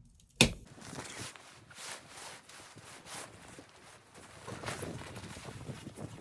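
A sharp knock about half a second in, then footsteps crunching through snow, irregular and getting busier near the end.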